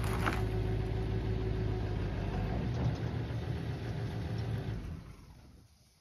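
Vehicle engine idling steadily, with a brief knock of the dumped logs settling just after the start; the hum fades out near the end.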